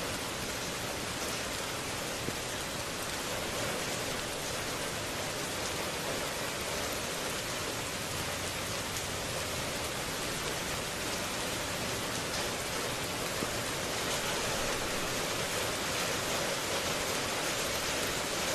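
Heavy rain falling steadily: an even, unbroken hiss with a few sharper drop taps.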